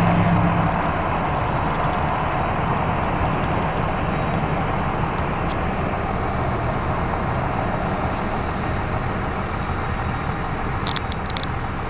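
Train running with a steady rumble that slowly fades, a low droning tone dying away at the start; a few sharp clicks near the end.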